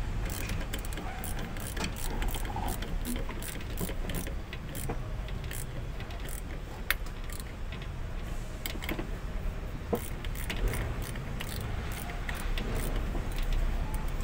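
Small hand ratchet clicking in short, irregular runs as it turns a bolt on the head of a diesel fuel filter and water separator housing, over a steady low rumble.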